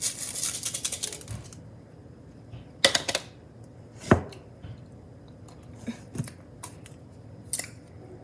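Candy sprinkles rattling inside a small plastic shaker container as they are shaken out over a frosted cake, a quick run of rattles for about the first second and a half. After that come a few separate light knocks and taps of things being handled and set down, the loudest about four seconds in.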